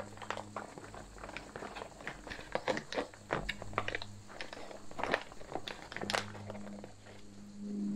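A spoon stirring and scraping inside a Back Country Cuisine freeze-dried meal pouch of rehydrating roast beef and vegetables. It makes irregular wet scrapes, clicks and crinkles of the pouch as the spoon works into the corners.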